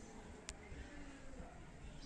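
Faint, quiet background with a single sharp click about half a second in.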